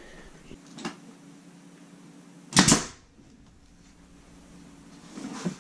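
Pneumatic nail gun firing once, a single sharp shot about two and a half seconds in, driving a nail through trim; a faint click comes earlier.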